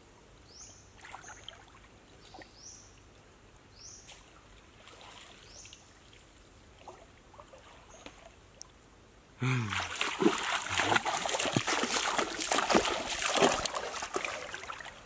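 Water splashing and trickling, loud and sudden from about nine seconds in. Before that is a quiet stretch with faint, short, high rising chirps about once a second.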